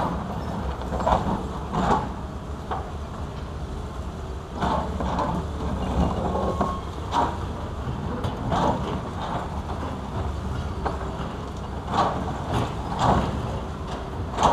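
Engines of hydraulic crawler excavators running steadily, with irregular clanks and knocks as their buckets dig into rock and rubble.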